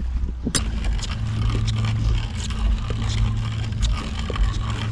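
Wet rope being hauled up hand over hand over a boat's gunwale to raise a hoop net, with irregular scraping and small clicks. A steady low hum runs underneath and grows stronger about a second in.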